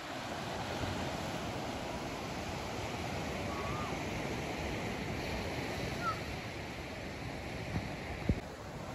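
Ocean surf breaking and washing up a sandy beach, a steady rush of waves. A couple of faint chirps sound midway, and a single sharp tap comes near the end.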